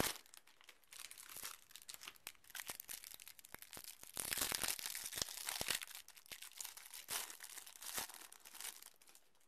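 Clear plastic wrapper on a pack of trading-card promos crinkling and tearing as it is pulled open by hand, with many small crackles throughout and the loudest stretch of crinkling a little past the middle.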